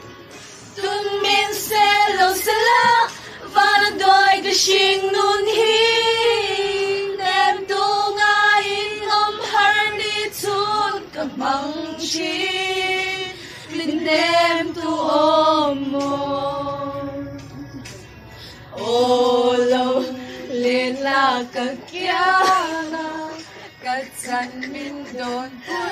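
A song sung by a female voice, with long held notes and short breaks between phrases.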